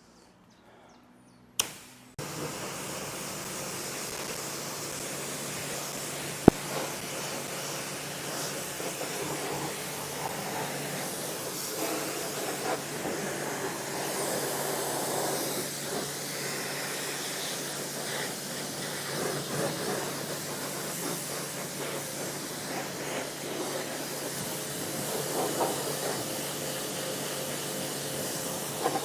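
Stihl REA 60 Plus battery pressure washer starting about two seconds in, then running steadily: the pump's hum under the hiss of the water jet spraying. A single sharp click a few seconds after it starts.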